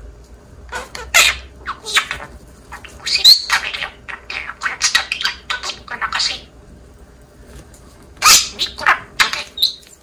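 Pet parakeets, a budgerigar and a green-cheeked conure, calling in short, sharp chirps and squawks, coming in three clusters with brief pauses between.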